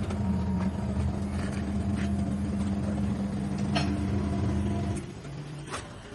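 Motor vehicle engine running with a steady low hum, with a few sharp metallic clicks and knocks over it. The hum cuts off about five seconds in.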